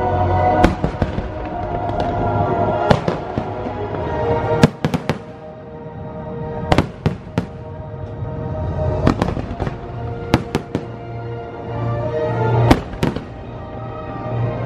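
Fireworks bursting in sharp bangs every second or two, the loudest cluster about five seconds in, over the show's music.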